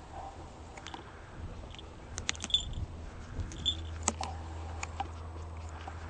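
Peregrine falcon tearing and eating raw meat on a leather falconry glove: scattered small clicks and snaps as its beak pulls at the flesh, busiest in the middle.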